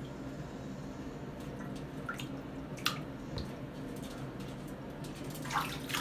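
Scattered drips and small splashes of water in a shallow bathtub: a few single drops about two to three seconds in and a small splash near the end, over a steady low hum.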